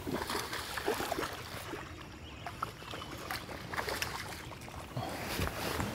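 Hooked bass splashing and thrashing at the water's surface beside a boat as it is landed, with scattered small knocks.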